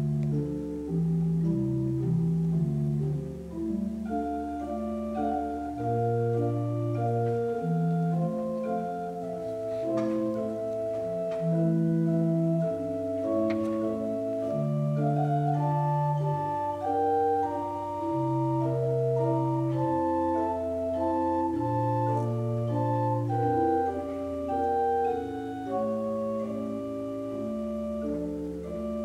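Pipe organ playing a slow piece of sustained chords, with long held pedal bass notes underneath.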